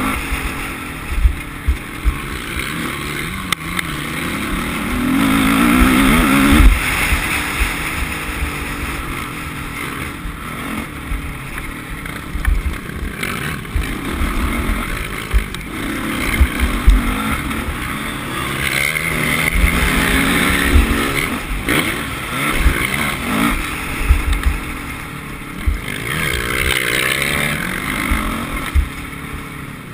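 Motocross bike engine heard from an onboard camera, revving up and falling back again and again as it rides the dirt track, with wind buffeting and thumps on the microphone.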